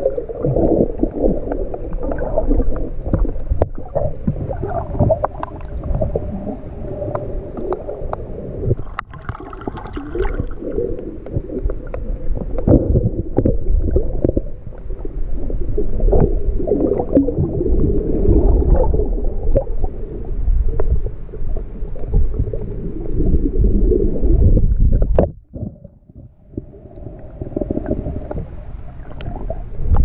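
Muffled underwater sound picked up by a GoPro in its waterproof housing: dull rumbling and gurgling water movement with scattered small clicks and knocks against the housing. A little past the two-thirds mark it drops away for about a second and a half, then returns.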